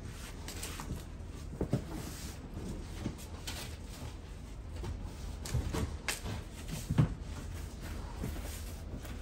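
Handling of a cardboard shipping box and the e-bike inside it: scattered knocks, bumps and rustles, the sharpest knock about seven seconds in.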